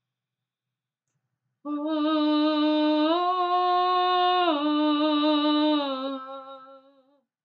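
A woman's wordless improvised singing. One long sustained vowel begins after a short silence, steps up in pitch, holds, steps back down, dips a little lower and fades out near the end.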